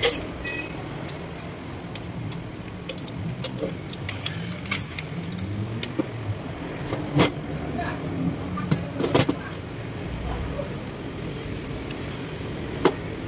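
Metal clinks and scrapes of a small combination wrench turning the bolts of a turbocharger's compressor housing, with a few sharp clicks spread through, over a steady low background noise.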